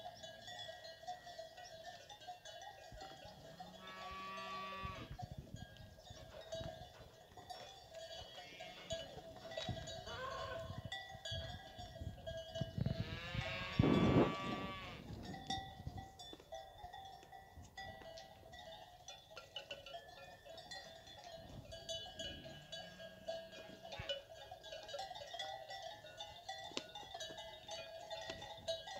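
Cowbells on a herd of fighting-breed cattle clanking and ringing steadily, with cattle bawling a few times, the loudest call about halfway through.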